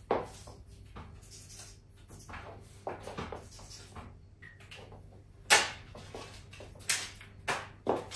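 Scattered sharp knocks and clicks of objects being picked up, moved and set down on a cluttered office desk, the loudest about five and a half seconds in.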